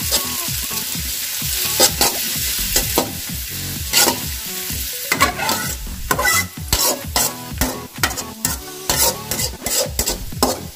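Sliced onions sizzling in hot oil in an aluminium kadhai as a spatula stirs them, with frequent scrapes and knocks of the spatula against the pan, coming thicker in the second half.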